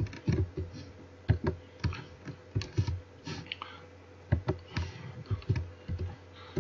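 Keystrokes on a computer keyboard: irregular typing, a few clicks a second with short pauses.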